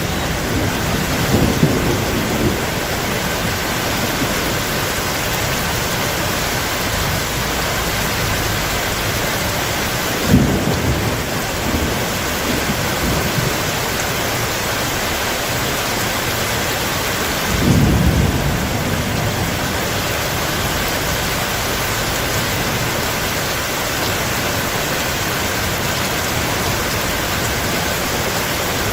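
Heavy rain falling steadily, with thunder: a low rumble about two seconds in, a sharp clap about ten seconds in, and a longer rumble at about eighteen seconds.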